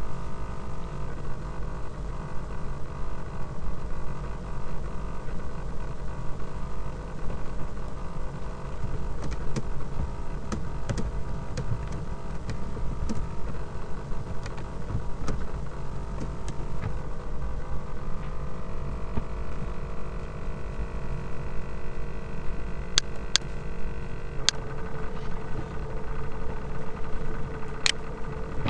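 Laptop cooling fan whose bearings are failing, a steady hum made of several tones. A few sharp clicks come in the middle and again near the end, and one tone of the hum shifts slightly near the end.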